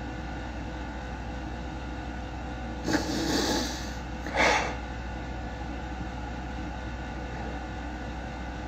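A woman crying behind her hands: two breathy sniffles, about three and four and a half seconds in, over a steady low room hum.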